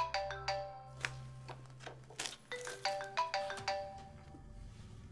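Mobile phone ringing with a marimba-style ringtone: a short melody of bright notes plays, pauses, and plays again. Paper rustles over it.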